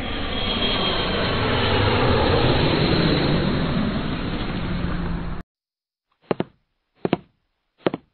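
A loud, dense rushing roar that cuts off suddenly about five and a half seconds in. Three short, evenly spaced knocks follow, about 0.8 s apart, like cartoon footstep sound effects.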